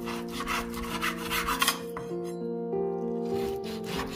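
Chef's knife slicing raw beef on a bamboo cutting board: a quick run of sawing strokes, the blade rasping through the meat and rubbing the wood, stopping about halfway and starting again near the end.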